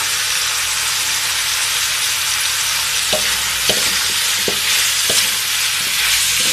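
Beef and spices sizzling as they fry in a metal wok, with a steady hiss. A wooden spatula stirs them, knocking and scraping against the pan several times in the second half.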